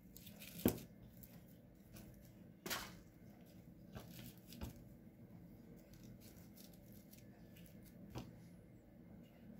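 Faint rustling of potting soil and soft clicks as fingers press gladiolus corms into a plastic pot, a few sharper ticks scattered among them.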